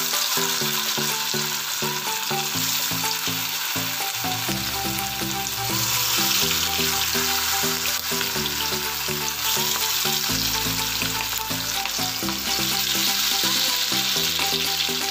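Marinated chicken pieces deep-frying in hot oil in a kadai: a steady, loud sizzle as the pieces go in and bubble. Background music with a bass line coming in about four and a half seconds in plays under it.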